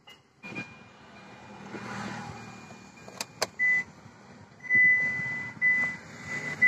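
Electronic beeps at one high pitch from a Hyundai Xcent's cabin, starting a little past halfway: a short beep, then longer ones, over a low steady hum. Two sharp clicks come just before the first beep.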